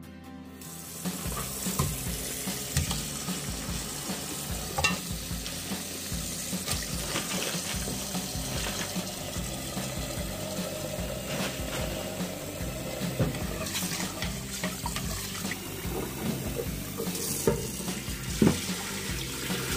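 Cold tap water running into a stainless steel pot and sink as raw pig's feet are rinsed by hand, starting about a second in. A steady splashing rush is broken by occasional knocks and splashes as the feet are handled in the pot.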